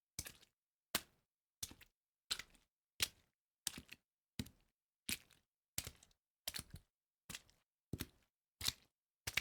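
Footsteps walking through water, an even walking pace of about three steps every two seconds, each step a short wet slap.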